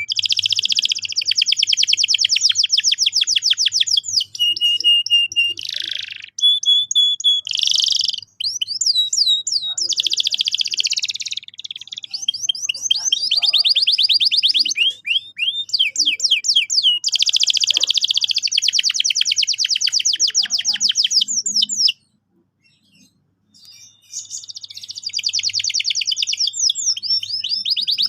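Male domestic canary singing: long, fast rolling trills and warbled phrases, one after another, with a gap of about two seconds near the end. This is the full courtship song of a canary in breeding condition.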